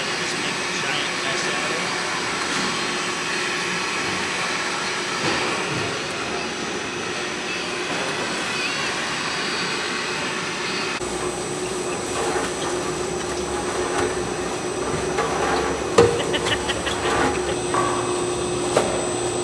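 Concrete 3D printing rig running: the mixer and pump drone steadily with a low hum and a thin high whine. There is a sharp knock about two-thirds of the way through.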